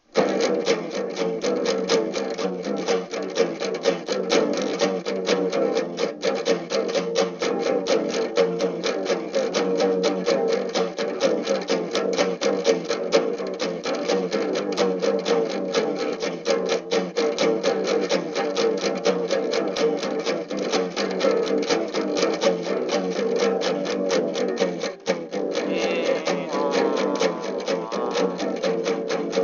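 Music: a fast, evenly strummed guitar with a steady beat, starting suddenly.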